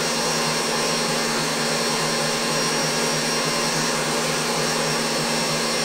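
Stand mixer's motor running steadily, whipping egg whites made with albumin in a steel bowl: an even whir with a thin high whine.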